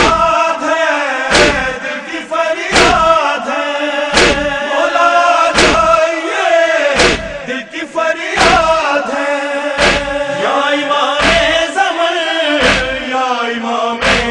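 Male voices chanting a noha (Shia lament) in unison, with a thump of chest-beating (matam) in time about every second and a half.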